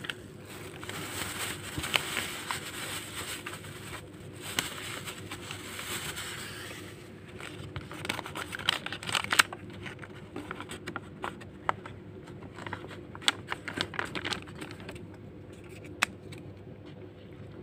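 Brown paper wrapping of a nasi lemak parcel rustling and crinkling as it is handled and unwrapped by hand, with a run of short sharp crackles in the middle as the paper is folded open.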